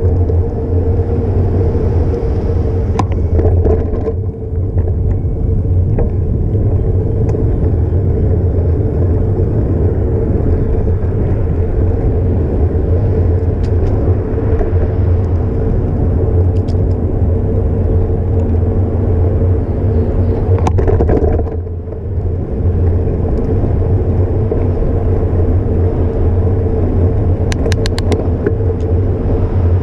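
Steady wind and road rumble on a bike-mounted GoPro's microphone while the bicycle is ridden, with a few light clicks and rattles and a short quieter spell about two-thirds of the way through.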